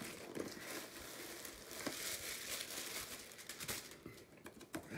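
Green KnitCrate cardboard box being opened by hand: flaps and packaging rustling and scraping, with a few sharp taps.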